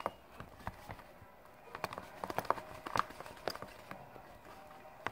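Fingers stirring a sticky mixture of white glue, lotion and foaming soap in a plastic tub: irregular wet clicks and squelches, several a second.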